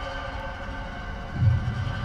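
Tense, ominous film score: sustained held tones over a low throbbing rumble, with a louder low swell about one and a half seconds in.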